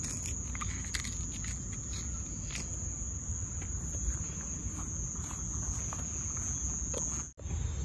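Crickets chirping in a steady, high, even trill, over a low rumble and a few faint ticks; it all cuts off abruptly near the end.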